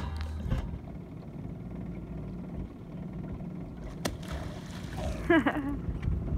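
A single sharp splash on the lake surface about four seconds in, as an animal hits the water near the shore, over a low steady rumble. A brief exclaimed voice follows about a second later.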